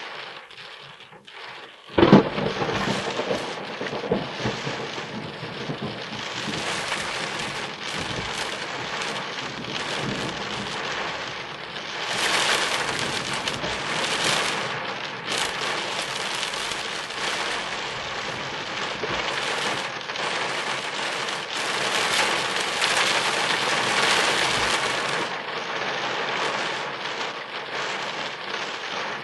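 Heavy rain on a car during a thunderstorm. It comes in with a sudden loud burst about two seconds in, then keeps up as a dense, steady hiss and patter that swells and eases.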